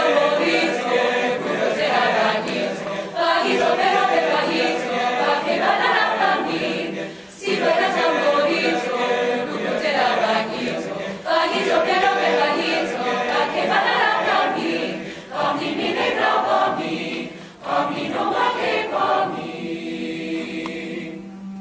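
Mixed choir singing a cappella in phrases of about four seconds over a steady low held note. Near the end the upper voices thin out and the low note carries on with softer singing.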